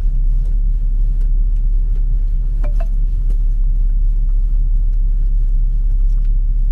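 Cabin rumble of a 2012 Ford Focus automatic on the move: a steady low drone of tyres and drivetrain. No clunk or creak is heard from the suspension; with new strut bearings and top mounts fitted, the noise over bumps and in turns is gone.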